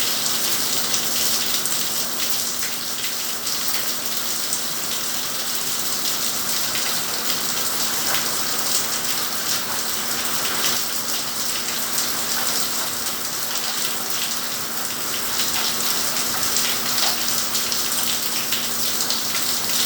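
Steady rain, a dense even hiss of falling drops with faint ticks of single drops, over a steady low hum.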